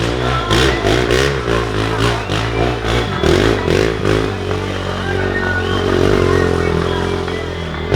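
Off-road racing engines revving hard, the pitch swinging rapidly up and down as the throttle is worked, with a steady low drone underneath.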